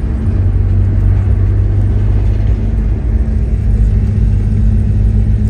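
Steady low rumble of road and engine noise inside a moving car's cabin at highway speed, with a faint steady hum.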